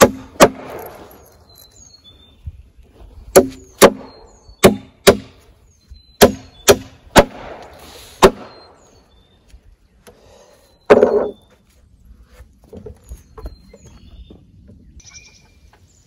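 Hammer driving nails into a pine board on a timber frame: about nine sharp, ringing strikes, mostly in quick pairs, through the first eight seconds. A brief duller noise follows about eleven seconds in, then only faint rustling.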